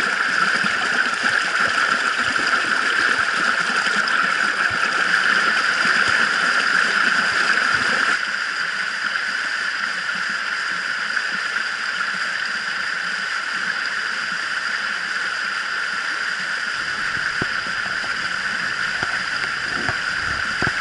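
Shallow stream water rushing and splashing over rocks, with the camera close to the water; the steady rush is loud and steps down in level about eight seconds in. A low rumble joins near the end.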